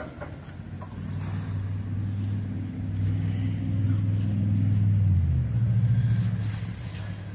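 A motor vehicle's engine passing by: a low hum that grows louder for about five seconds, shifts in pitch, then fades.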